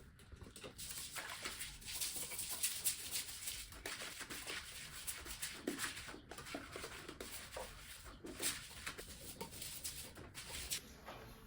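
Irregular rustling, scraping and light clicks, as of household items being handled.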